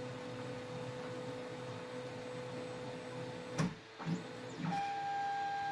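Stepper motors driving a large 3D printer's bed fast along its ball-screw Z axis, giving a steady whine: the extra noise the new ball screws make on fast bed moves. Two short knocks come about three and a half and four seconds in, and then a higher-pitched steady whine takes over.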